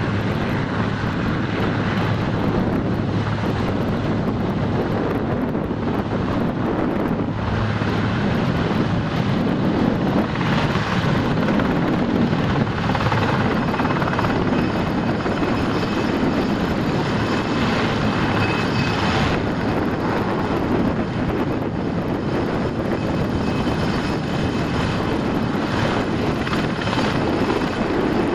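Aérospatiale AS 332 Super Puma helicopter, its twin turboshaft engines and rotors running at lift-off power as it rises off the ground and hovers. The sound is loud and steady, with high turbine whine tones growing clearer over the second half.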